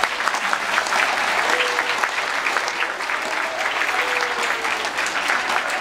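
A large audience of schoolchildren applauding steadily, a dense clatter of many hands clapping at once.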